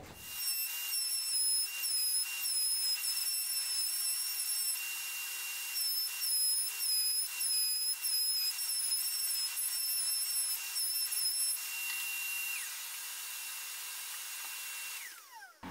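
Makita compact router spinning in a router table, with a high whine that dips briefly in pitch again and again as the wooden cleat piece is fed into the bit to notch it. For the last few seconds it runs steady with no load, then winds down in a falling whine as it is switched off.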